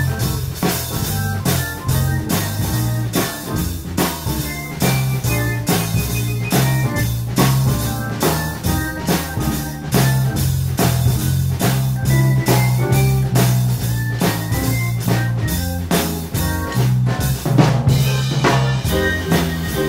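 Live jazz quartet of electric guitar, keyboard, bass and drum kit playing a soul-jazz blues, with a steady walking bass line and the drums keeping an even beat.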